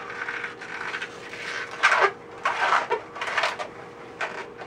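A small round latex balloon being squeezed and twisted in gloved hands, rubbing against itself in several short bursts, the loudest about two seconds in.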